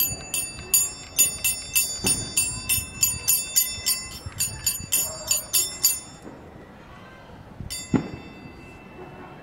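A bell ringing in quick, even strikes, about two and a half a second, that stop about six seconds in; a single sharp knock follows near the end.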